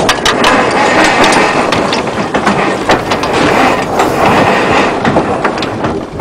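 Steady rushing noise with many irregular clicks and rattles, from a sailing yacht under way: water, wind and deck gear.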